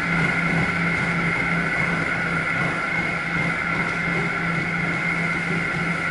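Steady mechanical drone of the ocean liner's onboard machinery: a low hum with two high whining tones over a hiss.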